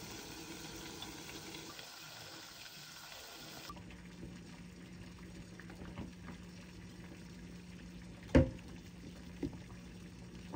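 Chicken pieces sizzling in oil in a frying pan, a steady hiss. After a cut about four seconds in, a low steady hum with a few light clicks, and one sharp knock near the end.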